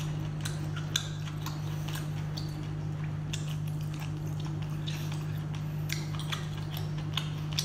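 A person chewing braised octopus tentacle with wet, sticky mouth clicks and smacks, scattered irregularly, over a steady low hum.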